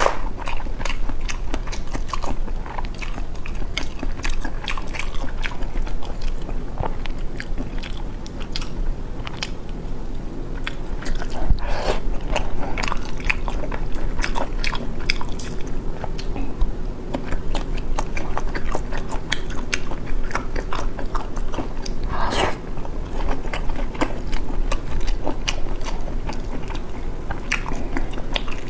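Close-miked eating: a person biting and chewing soft braised eggs, with a steady run of short wet mouth clicks.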